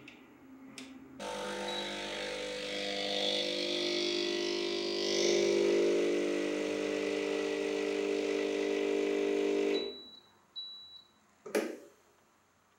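Sage Barista Express's vibratory pump pulling an espresso shot: a loud, steady buzzing hum that starts about a second in and cuts off abruptly near ten seconds. Two short clicks come before it, and two short high beeps and a sharp click come after it.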